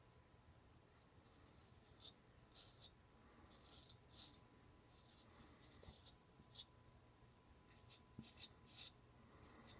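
Faint scraping of a double-edge safety razor cutting stubble through shaving lather on the neck, on the second pass of a wet shave: many short rasping strokes, some in quick runs of three or four.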